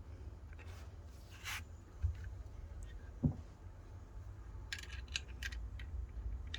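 Small wrench tightening the tail-light bolts on an e-bike's rear rack: scattered faint clicks and scrapes, a soft knock about three seconds in, and a quick run of clicks near the end.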